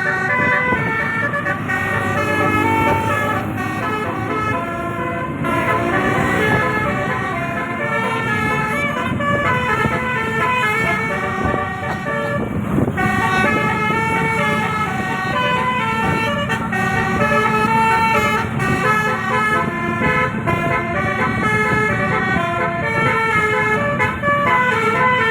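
Bus telolet horn, an array of 18 roof-mounted air-horn trumpets, playing a continuous run of quickly changing multi-note tunes.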